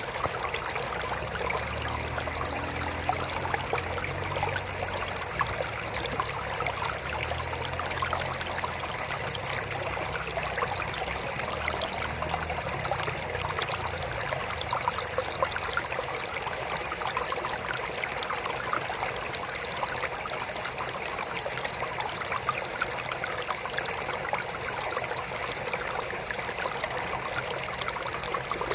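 Water trickling steadily into a mini aquarium, a continuous fine splashing and bubbling, with a low hum during the first half.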